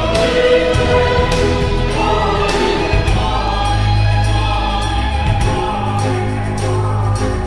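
Background music: a choir singing over a steady beat and low bass notes.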